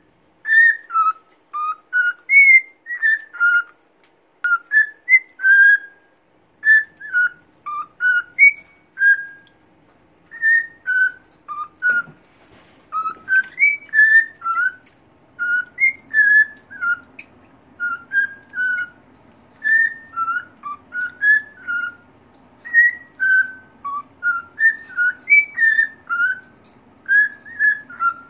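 Male cockatiel singing: a long run of short whistled notes that swoop up and down, in phrases with brief pauses between them.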